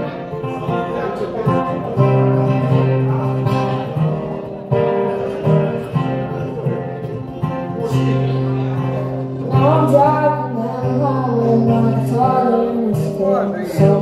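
Taylor acoustic guitar strummed with a young male voice singing an original song into a microphone, the singing strongest in the second half.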